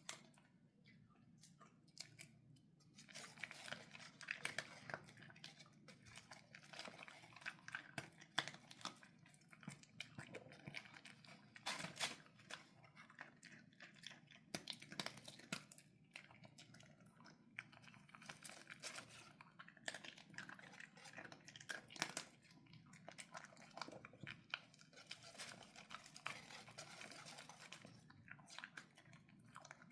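A pet crunching and chewing dry kibble: irregular runs of sharp, faint crunches, with a short lull about a second in before the chewing picks up again.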